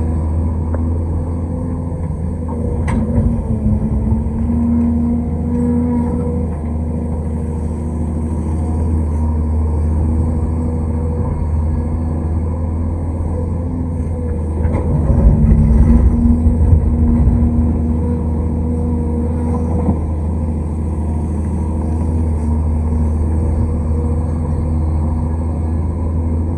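Large excavator's diesel engine running steadily under working load, with a louder surge of rumbling about fifteen seconds in and a few brief knocks.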